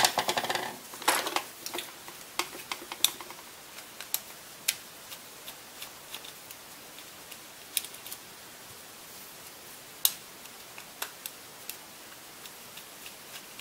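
Small, irregular clicks and ticks of a screwdriver working the screws of a laptop hard-drive caddy. They are quick and clustered for the first few seconds, then come singly every second or so.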